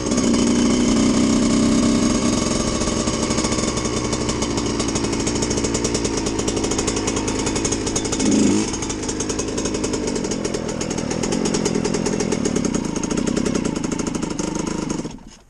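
Suzuki RM125 single-cylinder two-stroke dirt bike engine running at low revs while ridden slowly, briefly louder about eight seconds in, then cut off near the end.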